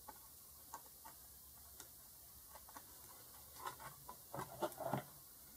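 Faint, scattered small clicks and light taps from handling a circuit board and tools, coming closer together and a little louder about three and a half seconds in.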